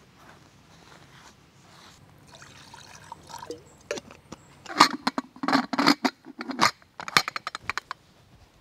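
Metal clinks and scrapes of an aluminium pressure cooker being handled as its lid is fitted onto the pot: a few light knocks from about two seconds in, then a dense cluster of clinks around the middle that stops near the end.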